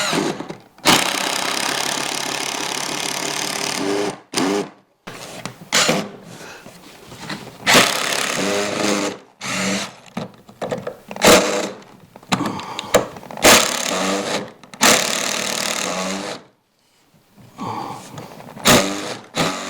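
Power drill driving screws into the wooden shelf in a series of runs: one of about three seconds near the start, then several shorter bursts with pauses between them.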